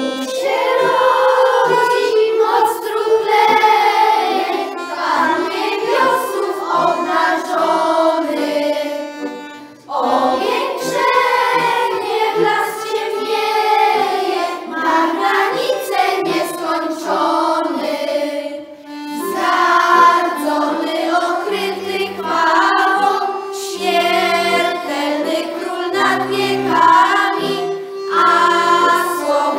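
Children's choir singing a carol together, accompanied by a button accordion. The singing runs in three phrases, with short breaks about 10 and 19 seconds in.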